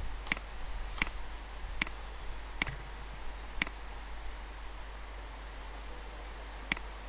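Computer mouse clicking: six sharp single clicks, five close together in the first four seconds and one more after a pause, over a steady low hum and hiss.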